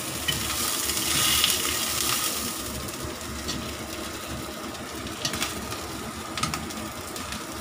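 Metal kitchen tongs clicking a few times against a wok and a stainless steel pot as pieces of fried black chicken are lifted into water, over a steady low stove rumble. A brief louder hiss comes about a second in.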